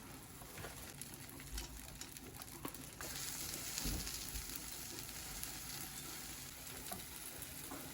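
Food frying in a pan with a steady sizzle that grows louder and brighter about three seconds in.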